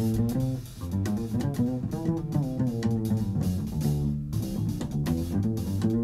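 Jazz small group playing, with a plucked double bass to the fore and drums behind.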